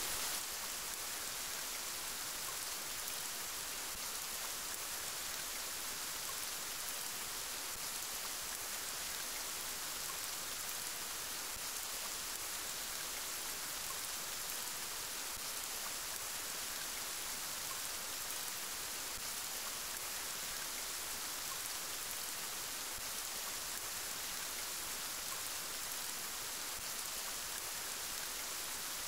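Steady rain falling, an even hiss of drops that holds unchanged throughout.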